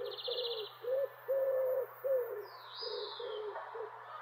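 A bird calling in a quick series of short, low hooting notes, about two to three a second. A brief high trill comes at the start and a high falling whistle near the middle. The hoots stop shortly before the end.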